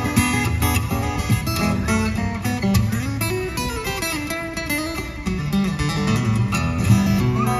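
Acoustic guitar played in a boogie-woogie blues style, strummed with a steady beat.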